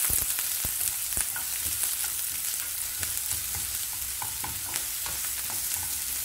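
Sliced onions and green chillies sizzling steadily as they fry in sesame oil in a non-stick pan, stirred with a wooden spatula. The spatula scrapes and taps against the pan, with a few sharper knocks in the first second.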